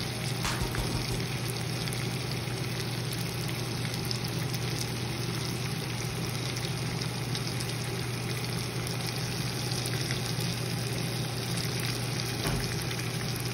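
Seasoned salmon fillets frying in hot fat in a pan: a steady sizzle with scattered small pops, over a steady low hum.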